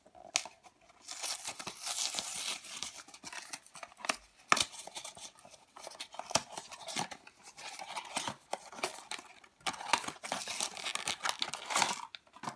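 A small cardboard blind box being torn open by hand: cardboard and paper ripping in bursts with sharp snaps, and a plastic blind bag crinkling as it comes out near the end.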